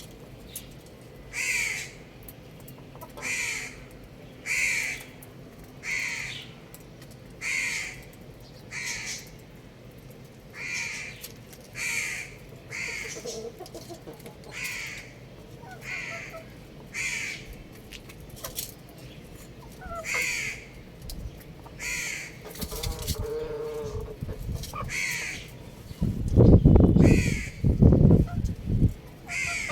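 A bird giving short, harsh calls over and over, about one every second and a half. Near the end a loud low rumble comes in over them.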